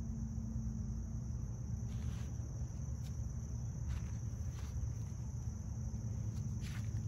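Steady high-pitched chirring of insects, with a low rumble on the microphone and a few short crackles.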